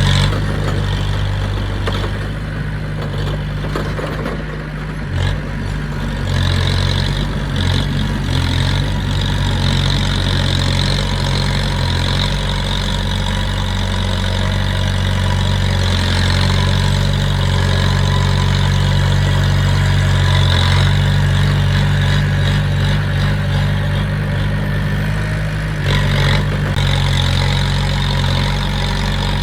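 Diesel engine of heavy earthmoving machinery running steadily, its engine note shifting a few times in the first third, with a brief knock near the end.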